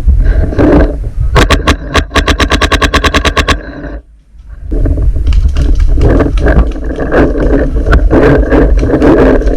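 Planet Eclipse Etha 2 .50 cal paintball marker firing a rapid string of about twenty shots, roughly nine a second, heard from close up. It is followed by a loud rumble with scattered knocks.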